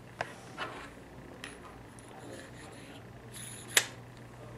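Light clicks and clinks of a microscope objective and its small metal parts being handled on a table, with one sharper click near the end, over a faint steady hum.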